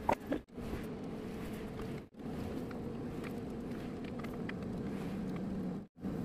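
Boral AF1300S oven-type air fryer running with its convection fan and heater on while preheating to 200 °C: a steady hum, broken by three brief silent gaps.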